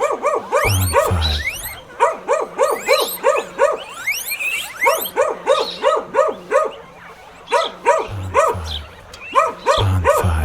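A small dog yapping in rapid runs of short, high barks, several a second, broken by brief pauses. High rising squeaks sound over the barks, and pairs of low thumps come now and then.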